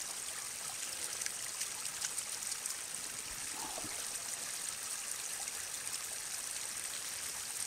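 Small forest stream trickling steadily.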